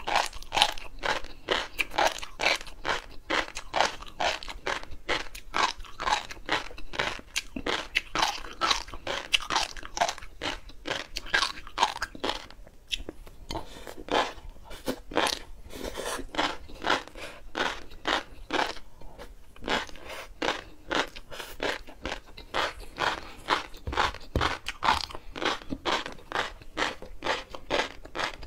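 Close-miked chewing of a mouthful of flying fish roe (tobiko), the small eggs crackling between the teeth in a dense run of sharp clicks, several a second.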